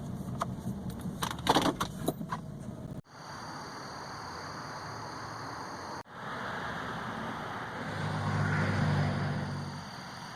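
Vehicle on the move: steady road and engine noise, with a series of clicks and rattles in the first few seconds. A low engine hum swells briefly near the end. The sound breaks off abruptly twice.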